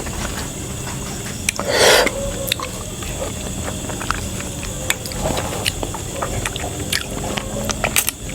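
A person eating up close: wet chewing with small mouth clicks and smacks, and a short louder burst of noise about two seconds in.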